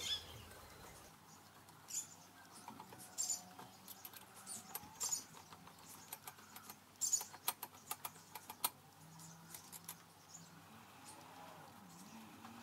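Light metal clicks and short scrapes from hand work on the milling machine's slide table, scattered and irregular, busiest about seven to nine seconds in; no motor running.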